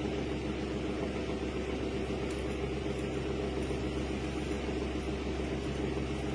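A steady machine hum, low and even, with a hiss over it, as of a motor running without change.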